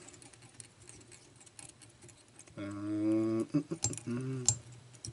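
Faint light ticking and rustling of fly-tying thread being wrapped around a hook shank held in a vise. About two and a half seconds in, a man's voice makes a drawn-out wordless sound for about a second, and a shorter one follows near the end.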